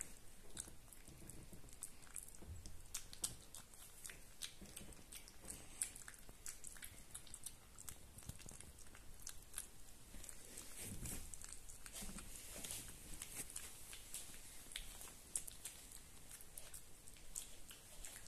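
Young puppy eating soft wet food from a bowl: faint, irregular smacking and chewing clicks, with a few sharper clicks among them.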